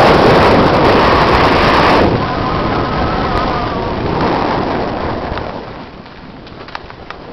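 Wind buffeting a helmet camera's microphone, with tyres rolling over a dirt trail on a fast mountain-bike descent. The rush is loudest in the first two seconds, then fades, and a few light clicks come near the end.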